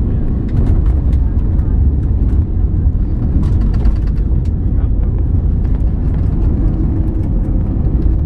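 Cabin noise of an Airbus A320neo airliner: a loud, steady low rumble of engines and airflow, with scattered light rattles and clicks.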